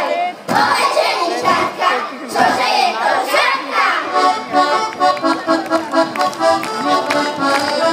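A group of children's voices singing for about the first four seconds, then accordion folk music comes in, a tune of short, evenly spaced notes.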